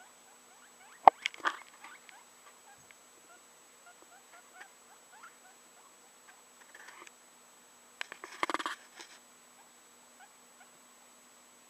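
A small pet rodent scrabbling over a fleece blanket: faint scattered scratches and ticks, with louder bursts of rustling about a second in and again around eight seconds.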